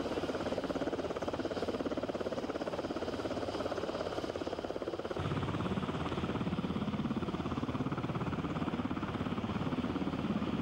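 UH-60 Black Hawk helicopter running, its rotors giving a fast, even chop over the turbine noise. About halfway through, the sound suddenly becomes deeper.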